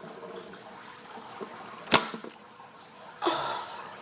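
A plastic bottle squeezed to fake a neck crack: one sharp crack about two seconds in, with a few faint ticks around it. A short, softer rustling noise follows a little after three seconds.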